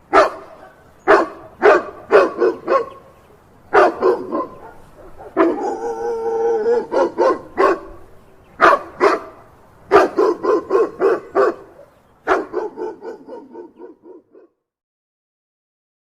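A canine barking in quick clusters of short, sharp barks, with a longer drawn-out yelping call near the middle. The barking stops about two seconds before the end.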